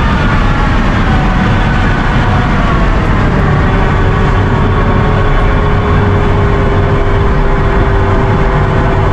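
Nissan Skyline R32 GT-R's twin-turbo straight-six running under way with road and drivetrain noise, heard from inside the cabin. The engine note eases down a little over the first few seconds, then holds steady.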